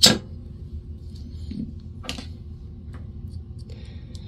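Small metal parts and tools clinking as they are handled on a workbench, with a sharp clink at the very start, the loudest, another about two seconds in, and a few light ticks.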